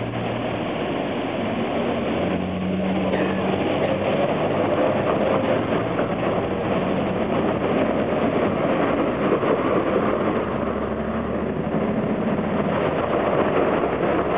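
Street traffic: cars passing close by on a wet road, a steady mix of engine noise and tyre noise with a faint low hum, growing slightly louder near the end.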